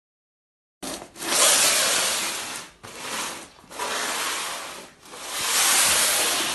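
A small box scraping and rubbing along a laminate floor as a cat squeezes into it, a rushing scrape that swells and fades in long strokes, starting about a second in.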